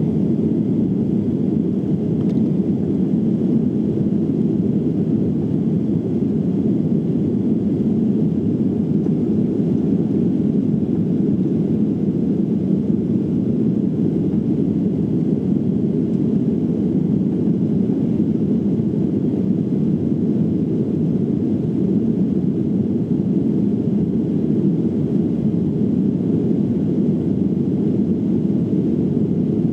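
Steady low drone of a Boeing 737-800 jet airliner heard from inside the cabin in flight: engine and airflow noise, even and unchanging.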